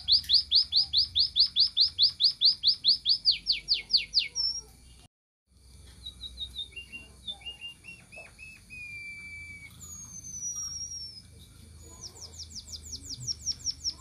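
White-headed munia (emprit kaji) calling: a fast run of about five or six high, down-slurred notes a second. The sound cuts out for half a second about five seconds in, then comes back as scattered shorter notes and one long falling whistle. The fast run starts again about twelve seconds in.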